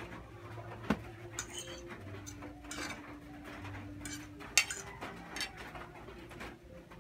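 A metal fork clinking and scraping on plates of noodles during eating, with two sharp clinks, about a second in and a little past halfway (the louder), and softer scrapes and chewing sounds between.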